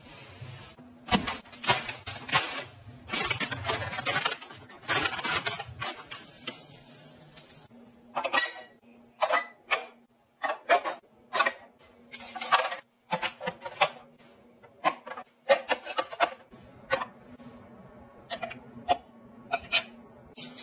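A sponge scrubbing a wet, soapy glass stovetop in long swishes, then a run of light plastic clicks and knocks as cups are handled in a wall-mounted holder and a toothpaste dispenser is worked.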